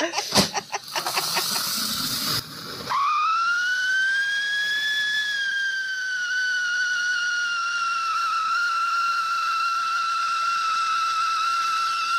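Red Giant siren fountain firework: the fuse fizzes and crackles, then about three seconds in a whistle starts, rises a little and settles into a steady, slowly falling tone that sounds like an ambulance siren.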